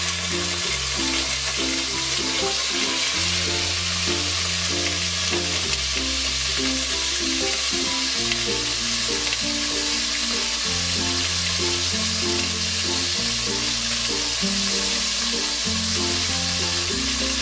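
Marinated chicken leg pieces sizzling steadily as they fry in hot oil in a karahi. Background music with low held notes that change every second or two plays underneath.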